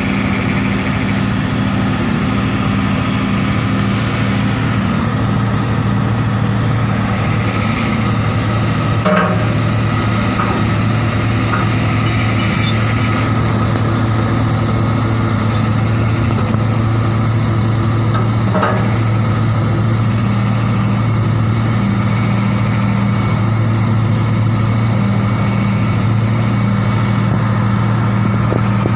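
Heavy diesel engine idling steadily, with a few short knocks.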